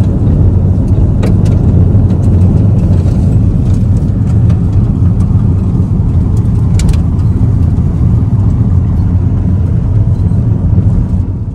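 Inside the cabin of a passenger van driving along a road: steady, loud, low engine and road rumble, with a couple of light clicks.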